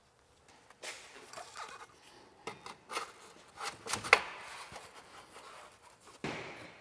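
Light metal clinks and scraping as a titanium exhaust tip and muffler are worked into place by hand, with a few sharper clicks about three to four seconds in.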